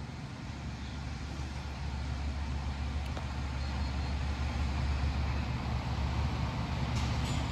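Low, steady engine-like rumble that slowly grows louder.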